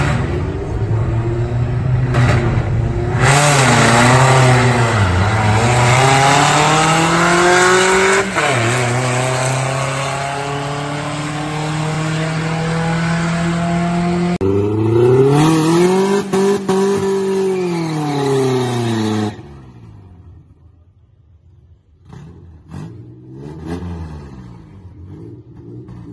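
Drag-race launch: car engines revving hard off the line, climbing in pitch with drops at gear shifts. A second loud run rises and falls in pitch as it passes, then stops abruptly; near the end there are only faint engine revs from the staging lanes.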